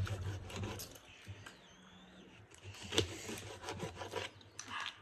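Hands cracking and peeling boiled crab-leg and crawfish shells: scattered crackles and shell-rubbing scrapes, with one sharper crack about three seconds in.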